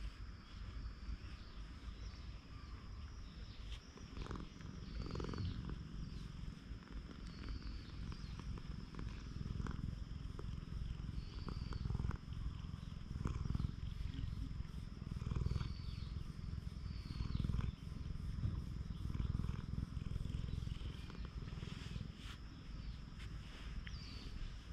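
Stray cat purring steadily at close range while it is stroked and scratched under the chin.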